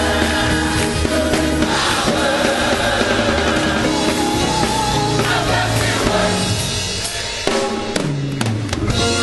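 Live gospel band music: a drum kit keeping the beat under sustained keyboard chords and a moving bass line, with a run of sharp drum hits near the end.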